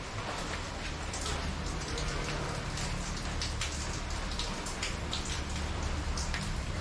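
Steady rain falling, with many individual drops splashing close by at irregular moments, over a low steady rumble.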